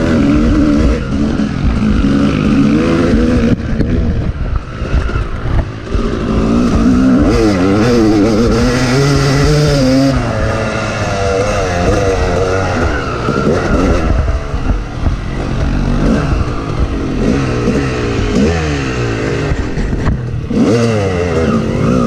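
Yamaha YZ250 two-stroke dirt bike engine being ridden hard, its pitch rising and falling over and over as the throttle is opened and closed, with wind and riding noise from the helmet-mounted camera.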